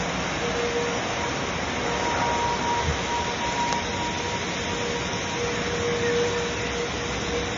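Floodwater rushing in a steady roar from an overflowing river, with a faint steady tone held through most of it.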